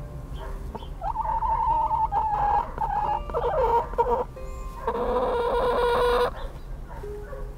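Chicken calling: a long, drawn-out call starting about a second in and lasting some three seconds, then a second held call of about a second and a half.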